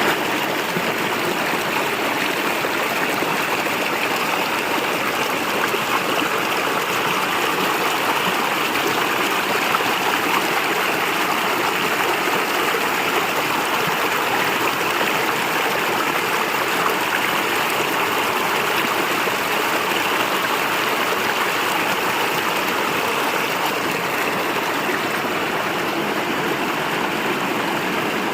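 Stream water flowing steadily: an even, unbroken rushing noise.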